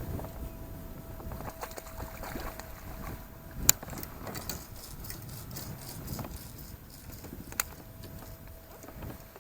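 Faint rumbling handling noise in a fishing kayak, with two sharp clicks about four seconds apart and a faint steady hum.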